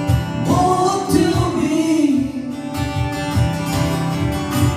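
A voice singing a long held, wavering line over a strummed acoustic guitar keeping a steady beat; the sung line comes in about half a second in.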